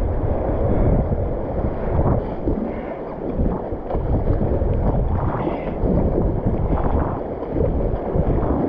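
Kayak paddle strokes splashing and river water rushing past a whitewater racing kayak, with wind buffeting the microphone in a steady low rumble.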